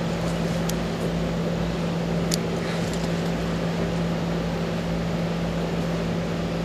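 A steady low hum over constant hiss, with two faint clicks near the start.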